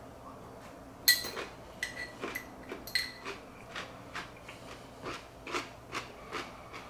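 A metal fork clinks against a glass pickle jar a few times, ringing briefly, then a pickle is chewed in a steady rhythm of about two chews a second.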